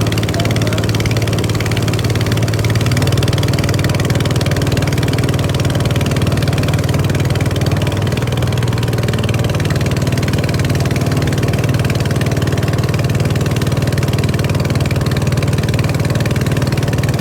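Motorboat engine running steadily as the boat heads upstream, its pitch stepping up slightly about three seconds in, over a hiss of rushing water.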